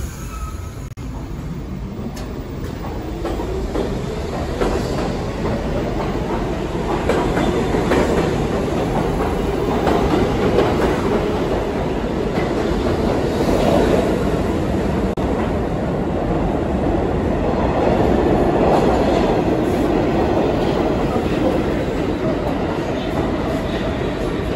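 New York City subway train pulling out of an underground station and accelerating past the platform. Its motor whine rises in pitch over the first few seconds, then the cars run past with a loud, steady rolling noise.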